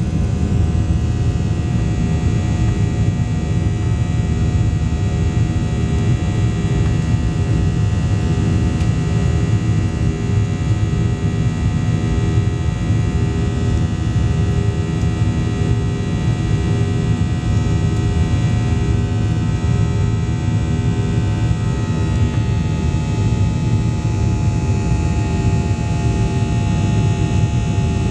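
Cabin noise of a Boeing 737-800's CFM56 turbofan engines during the climb after takeoff, heard from inside over the wing: a steady rumble with a whining hum. A little over three-quarters of the way through, the engine tones shift to a new pitch.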